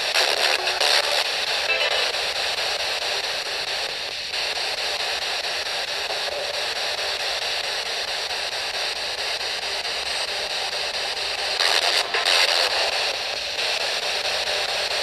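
Steady radio static hiss, with brief louder flares a few times.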